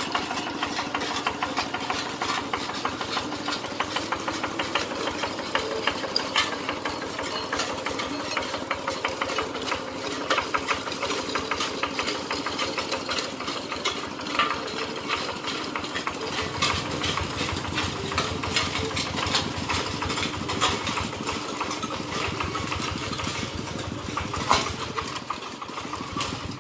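Kubota RT120 walk-behind tractor's single-cylinder diesel engine running steadily, with a rapid, even beat of firing strokes.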